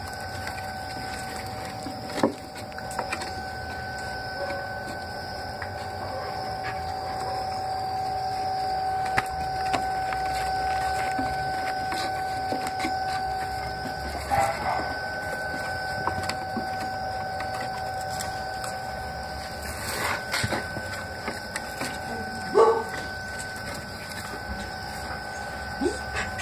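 Month-old Border Collie puppies moving about on wooden boards, with scattered knocks and a few short high whimpers, the clearest about midway and again a few seconds before the end. A steady high-pitched hum runs underneath.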